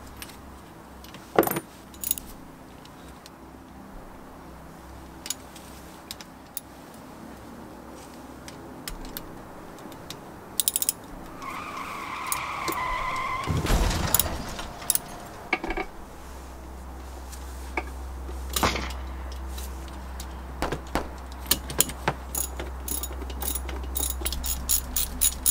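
Hand tools working on a personal-watercraft engine: scattered metallic clicks, knocks and clinks of a socket ratchet and loose parts, with a fast run of ratchet clicks near the end. A short squeak comes about halfway, and a low steady hum starts about two thirds in.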